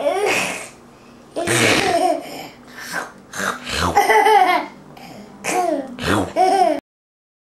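A young child laughing and making funny vocal noises in about six bursts, cutting off abruptly near the end.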